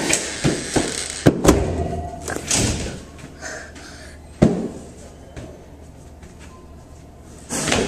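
A series of sharp knocks and thumps, several close together in the first second and a half, then a single hard thump about four and a half seconds in and another near the end.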